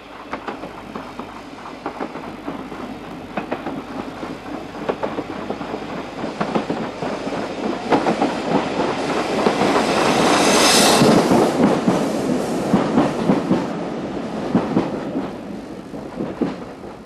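Steam locomotive chuffing as it approaches, its exhaust beats growing louder until it passes close by about eleven seconds in with a rush of steam hiss, then fading as it goes away.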